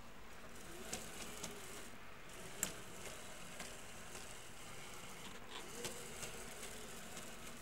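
Anet A8 3D printer's X-axis carriage pushed by hand along its steel rods: a faint rasp with a few light clicks, the sharpest about two and a half seconds in. The carriage's linear bearings are worn out.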